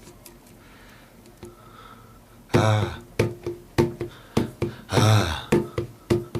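A jar drummed by hand in a steady beat that starts about two and a half seconds in: a deep booming stroke every couple of seconds with lighter, ringing taps in between, under two a second.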